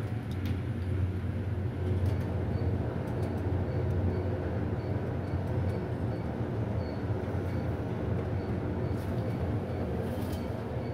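High-speed elevator car travelling in its shaft: a steady low rumble with rushing noise, a few faint clicks near the end.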